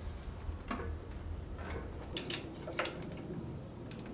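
Irregular light clicks and taps as the rear wheel and axle of a Puch Maxi moped are fitted into the frame, a cluster of quick clicks in the middle, over a low steady hum.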